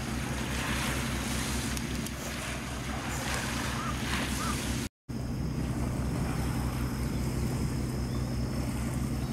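A boat's engine running as a steady low hum with an even pulsing beat, under the rush of water and wind noise on the microphone. The sound drops out for a moment about halfway through.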